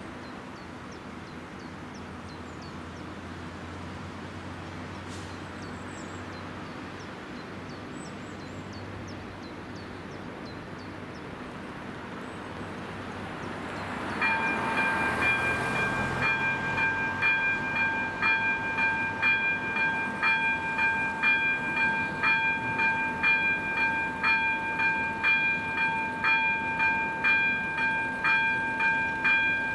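A car drives over the crossing, then about halfway through the level crossing's electronic warning bell (AŽD 71 signal) starts, ringing with a quick, even beat of about two strikes a second, signalling an approaching train.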